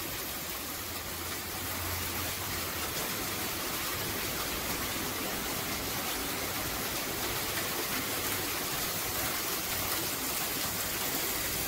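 Steady, even hiss of background noise with a faint low hum underneath; no distinct event.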